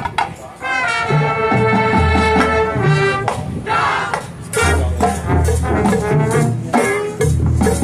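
High school marching band playing: the brass section holds sustained chords, then the low brass and drums come in with heavy repeated hits in the second half.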